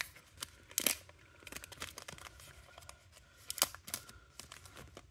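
Foil wrapper of a Panini Select basketball card pack being torn open and crinkled by hand: a string of sharp crackles, loudest about a second in and again around three and a half seconds in.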